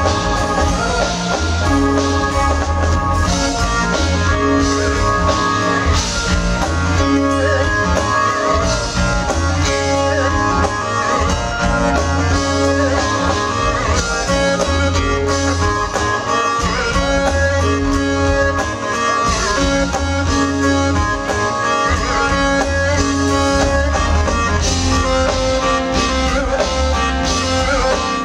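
Live band playing: keytar, electric guitar, electric bass and drum kit, with a steady, pulsing bass line.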